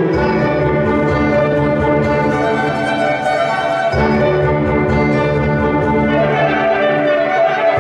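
Live classical music from a small ensemble with violin, clarinet and keyboard, playing sustained, layered notes.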